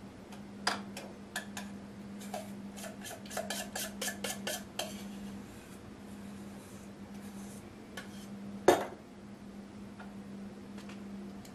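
A utensil clinking and scraping against a glass trifle bowl while spreading a cream cheese mixture. There is a quick run of taps in the first five seconds, then one sharp knock, the loudest sound, near the nine-second mark.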